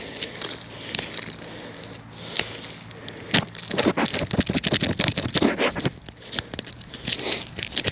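A small stick scraping and crunching packed soil out of the hollow in a heavy piece of lead, a few light clicks at first and then a dense run of scrapes from about three and a half to six seconds in.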